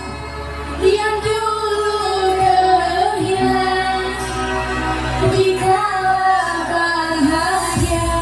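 Live band music with a woman singing a slow, drawn-out melody over a steady bass.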